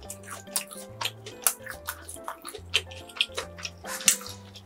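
Close-miked eating sounds of bread being chewed, a run of sharp wet mouth clicks several times a second, over background music with a slow bass line.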